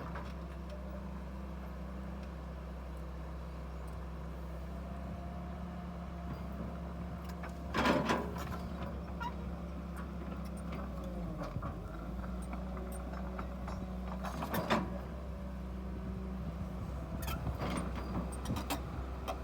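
Excavator's diesel engine running steadily with a low hum, with two brief louder knocks about 8 seconds in and again near 15 seconds.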